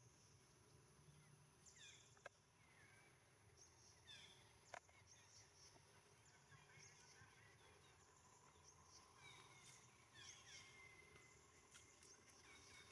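Near silence: quiet outdoor ambience with faint, high chirping calls falling in pitch, scattered throughout, and two sharp clicks at about two and four and a half seconds in.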